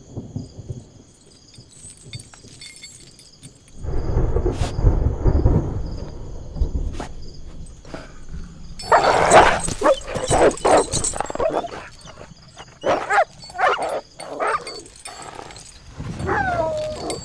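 A low rumble from about four seconds in, then a dog barking in loud short bursts from about nine seconds, ending in a falling whine.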